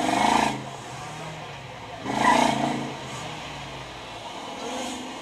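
Road vehicle sounds: a steady engine hum with two short, loud pitched blasts about two seconds apart.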